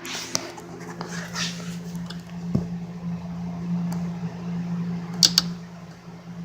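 A steady low hum underneath scattered small clicks and rattles of hands working the plastic electrical connectors off an AdBlue pump, with two sharp clicks close together near the end.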